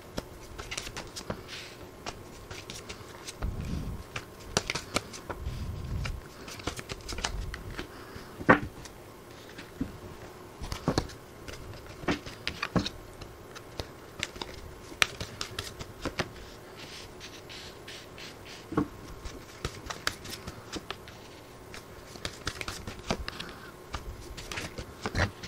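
Tarot cards being shuffled by hand and dealt onto a cloth-covered table: irregular soft card slaps, riffles and taps, one sharper slap about eight seconds in.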